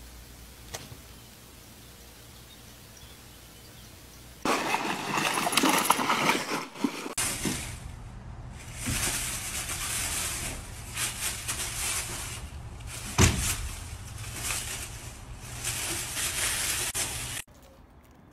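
Two raccoons fighting in dry leaves: loud, irregular scuffling noise in rough bursts, with one sharp knock about thirteen seconds in. Before it, a faint steady hiss, then another loud, noisy stretch of a few seconds.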